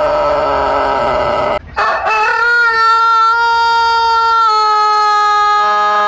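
Rooster crowing: one crow trails off and breaks about a second and a half in. A new long, steady, held crow starts around two seconds, steps down in pitch about halfway through and is still going at the end.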